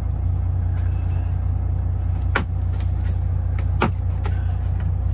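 Kenworth T680 semi truck's diesel engine idling steadily, heard from inside the cab. Two sharp knocks in the middle and another at the end come from the driver handling the overhead console fittings.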